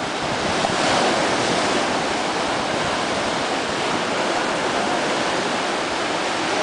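Ocean surf breaking and washing over a rocky shore shelf: a steady rush of breaking waves that swells about a second in.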